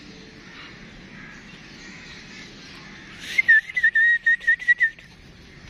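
A quick run of about eight short, high whistled notes, all at much the same pitch, starting a little over three seconds in over a faint steady background.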